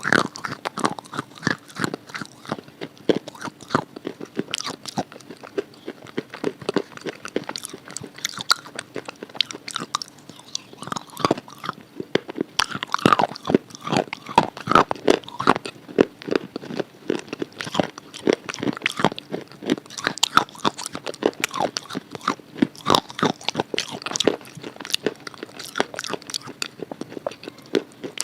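Close-up crunching and chewing of a red chalk bar coated in red khadi paste: bites snap off and are ground between the teeth, with many irregular sharp crackles.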